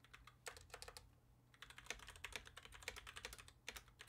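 Faint typing on a computer keyboard: a short run of keystrokes, a brief pause, then a longer run of quick key clicks.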